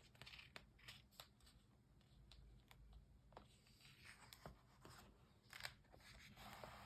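Near silence with faint, scattered clicks and rustles of paper, as a picture book's page is handled and turned.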